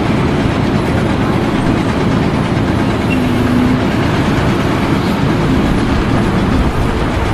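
A vehicle's engine running steadily, with heavy rumbling noise and no distinct impacts.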